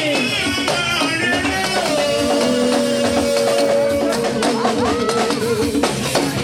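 Yoruba praise music with percussion: a voice holds one long wavering note over drums and tambourine or rattle shakers.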